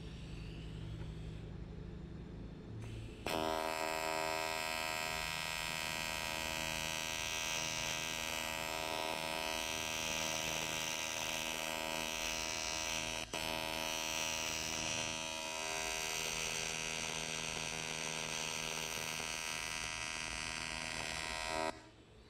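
TIG welding arc on the Ford transmission's aluminium case, a steady buzzing hum. It starts about three seconds in, breaks off for an instant about halfway through, and cuts off shortly before the end.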